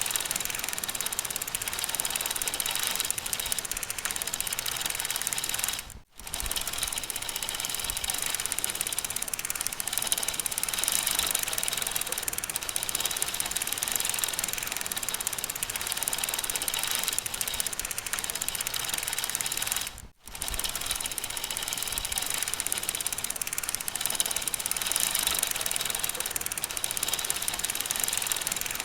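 Bicycle being pedaled: a fast, even clicking and whirring from the chain and drivetrain that drops out for a moment twice.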